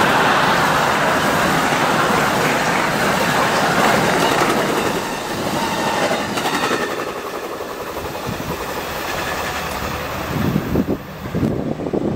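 Amtrak passenger train passing, loudest over the first seven seconds and then dropping away as the last cars go by.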